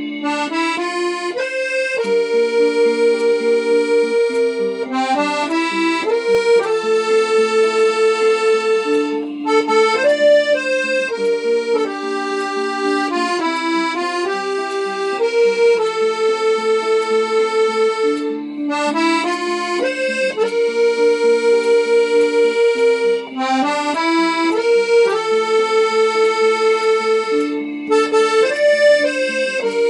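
Instrumental background music: a melody of long held notes over sustained chords, in phrases that pause briefly and start again about every nine seconds.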